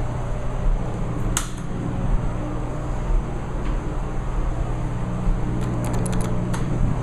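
A steady low mechanical hum, with one sharp click about a second and a half in and a quick run of clicks near the end.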